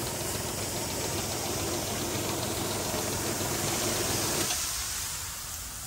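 Motor-driven pressure sprayer pump running steadily with a hiss while it circulates and stirs the spray mixture. About four and a half seconds in, the sound thins and drops a little.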